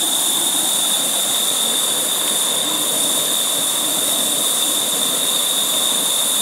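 Optimus Vega remote-canister stove burning under a kettle in turbo mode, its gas canister inverted so liquid fuel feeds the burner: a loud, steady rush of flame that does not change.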